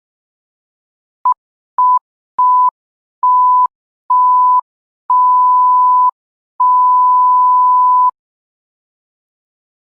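Electronic beep sound effect: a pure tone of about 1 kHz, like a censor bleep or test tone, sounded seven times with silence between. Each beep is longer than the last, from a brief blip to about a second and a half.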